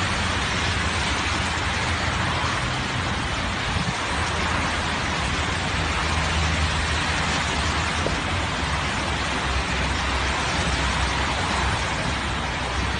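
Steady rushing noise of rain and brown floodwater surging down a stepped concrete drainage channel, mixed with car traffic on the wet road.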